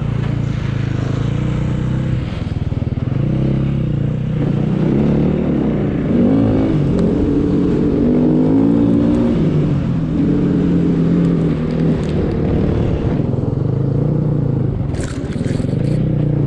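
Snowbike (dirt bike fitted with a track and front ski) engine running under load, its pitch rising and falling again and again as the throttle is worked, over a steady hiss and scrape of the track and ski through snow.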